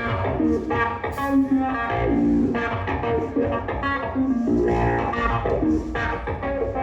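Electric guitar picked through the stage PA for a sound check: a short phrase of single notes, repeated about every two seconds.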